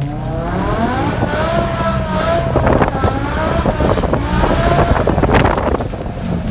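BMW E60 M5's 5.0-litre V10 engine revving hard, its note climbing over the first two seconds and then wavering up and down at high revs, with wind noise on the microphone.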